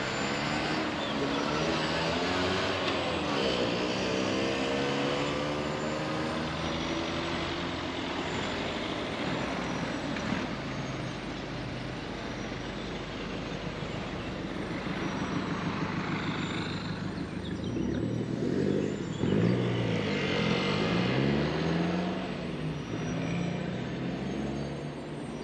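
City road traffic: cars and other vehicles driving past close by over a steady traffic noise, with one passing about three seconds in and a louder one near the end.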